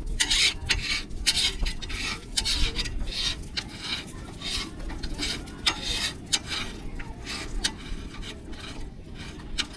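Repeated scraping or rubbing strokes, about one or two a second, over a steady low rumble.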